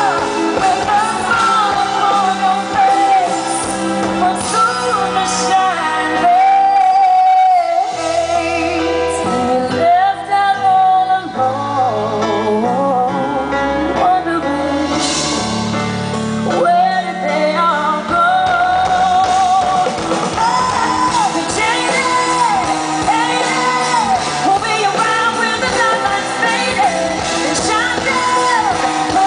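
Live pop concert music: a woman singing lead into a microphone over a full live band with electric guitar, heard from the audience in a large hall.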